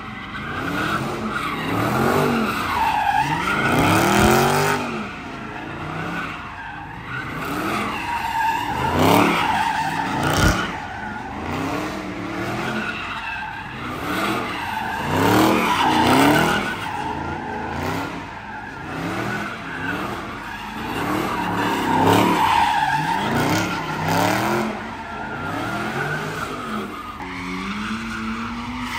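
A car doing donuts, its engine revving up and down over and over, about every one and a half to two seconds, while its tires squeal and skid. A sharp bang cuts through about ten seconds in.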